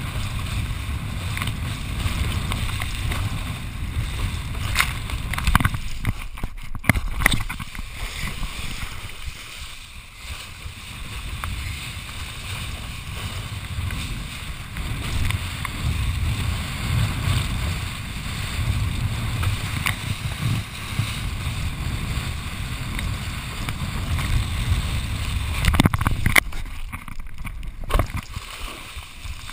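Water rushing and slapping under a kiteboard planing fast across open water, with wind buffeting the board-mounted camera's microphone as a steady rumble and hiss. Sharp ticks of spray hit the camera. The noise drops out briefly twice, and near the end water washes over the camera.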